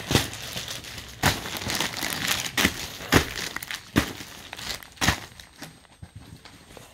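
Plastic packaging crinkling and rustling as a packed suit set is handled and unwrapped, with a string of sharper crackles through it that die down near the end.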